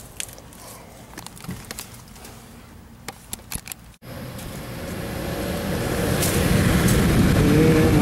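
Light handling clicks and taps, then the outdoor unit's Trane ECM fan motor starting up: a rushing motor-and-air noise that builds over about three seconds and then holds steady. The replaced motor now starts and runs instead of hunting.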